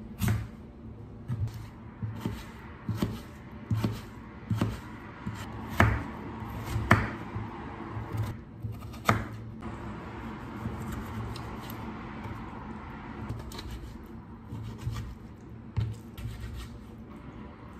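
Kitchen knife chopping peeled potatoes on a plastic cutting board: sharp knocks of the blade hitting the board, about one a second for the first ten seconds or so, then sparser.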